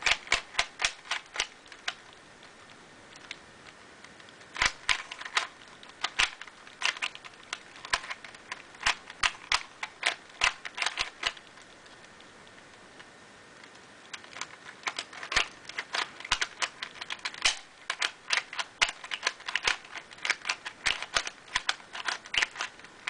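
Dollar-store 3x3 puzzle cube, lubricated with silicone spray, being turned by hand: rapid runs of sharp plastic clicks as the layers turn, broken by two pauses of a couple of seconds, one about two seconds in and one near the middle.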